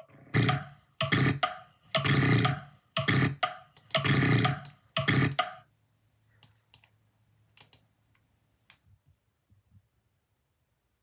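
A person's loud, breathy vocal noises in about six bursts, roughly one a second, then a few faint clicks.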